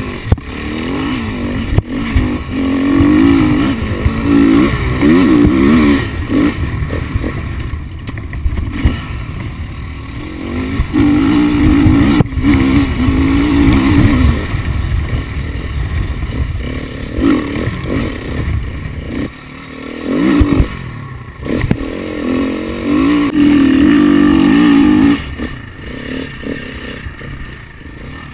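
KTM 350 XCF-W's single-cylinder four-stroke engine revving hard on an enduro ride, its pitch climbing and dropping again and again as the throttle is opened and shut. A few sharp knocks cut through it.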